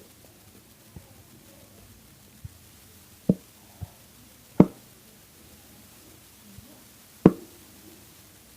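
A few sharp knocks while glue is poured from its bottle into a bowl, the loudest three about three, four and a half and seven seconds in, with fainter taps between.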